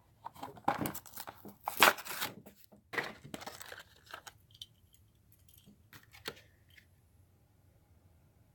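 A Hot Wheels blister card being torn open: a run of short ripping and crinkling sounds of cardboard and plastic packaging over the first four seconds or so, loudest about two seconds in, then a few light clicks and quiet handling.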